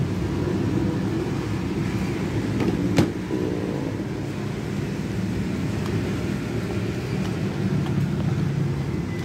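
Steady rumble of passing road traffic, with a single sharp knock about three seconds in.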